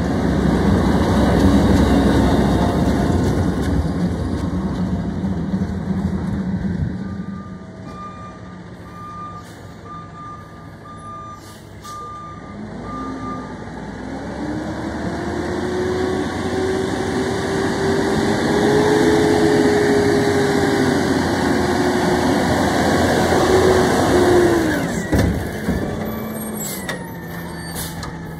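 Diesel garbage trucks: a truck engine runs loud close by, then fades while a distant backup beeper sounds a row of even beeps. A garbage truck's engine then rises steadily in pitch as it comes up, drops away suddenly with a short air-brake hiss, and a few sharp clanks follow as the truck's automated side-loader arm reaches for a wheeled trash cart.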